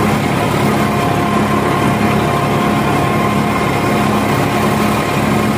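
New Holland 3510 tractor's 35 hp diesel engine running steadily under load, driving a 10-foot rotavator through its PTO shaft as it tills the soil.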